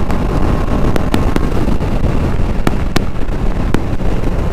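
Wind rushing and buffeting over a motorcycle-mounted action camera's microphone at around 90 km/h, with the motorcycle running underneath. A few sharp clicks sound through the middle.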